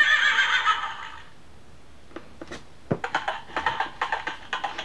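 Small speaker of a children's electronic sound book. The tail of a recorded horse whinny fades out in the first second. Then come a couple of button clicks, and about three seconds in, a rapid clattering sound effect lasting under two seconds.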